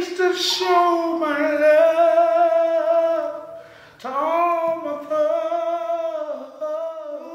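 A man singing in a high voice with no accompaniment: two long phrases of held, wavering notes, the first fading away about three and a half seconds in and the second starting soon after.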